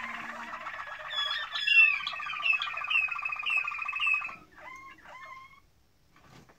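Caged domestic canaries singing: a fast rolling trill, then a run of repeated rising chirps about two a second over a lower trill. The song breaks off about four seconds in, followed by a few short notes and a pause.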